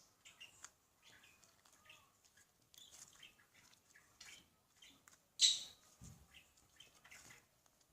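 Butter slime being squished and poked by hand: faint, irregular squishing, crackling and squeaking sounds, with one louder squelch about five and a half seconds in.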